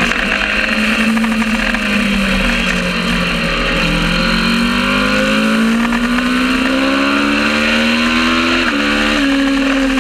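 Kawasaki ER650 parallel-twin race motorcycle engine under way: the revs fall for about four seconds, then climb steadily, with an upshift about nine seconds in that drops the pitch.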